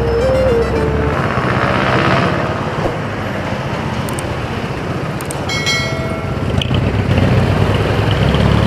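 Motorcycle riding through city traffic: its engine running under a steady rush of road and traffic noise. A brief high ringing tone sounds about six seconds in.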